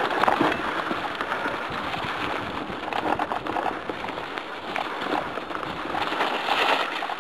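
Mountain bike descending a dirt singletrack, heard through a helmet-mounted camera: a steady rushing hiss of wind and tyre noise, full of small crackles and clicks from the tyres and bike over loose dirt and stones.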